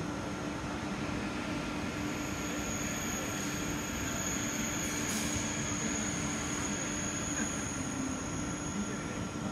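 Train running through the station tracks, its wheels giving a steady high squeal on the rails that sets in about two seconds in.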